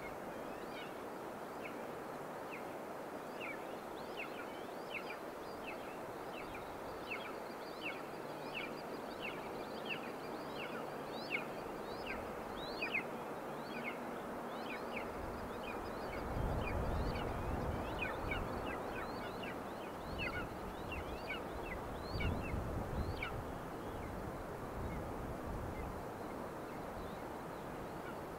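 Young golden eagle calling: a long series of thin, high, downward-slurred notes, about one or two a second, that stops a few seconds before the end. Wind gusts rumble on the microphone about halfway through and again later.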